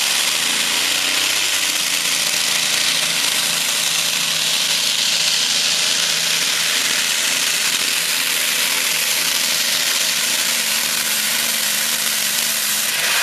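The big supercharged engine of a free-class pulling tractor running at full load as it drags the weight sled down the track: a steady, continuous engine noise without a break.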